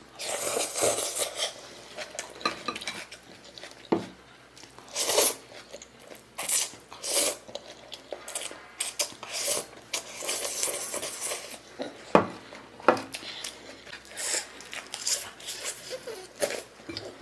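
Eating from a bowl of noodles: irregular clinks and scrapes of utensils against the dish, mixed with short noisy eating sounds.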